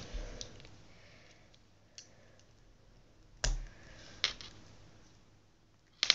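Small LEGO plastic pieces clicking and knocking as they are handled on a table: a handful of separate clicks, two with a light bump, then a quicker run of clicks near the end.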